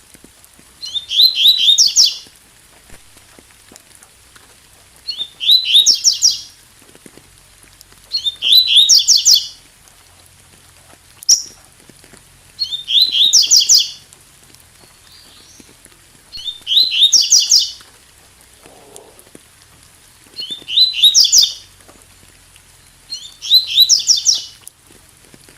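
Double-collared seedeater (coleiro tui tui) singing: seven short phrases of fast repeated chirping notes, each about a second long and repeated every few seconds, with one single short note between them. A faint steady rain hiss lies underneath.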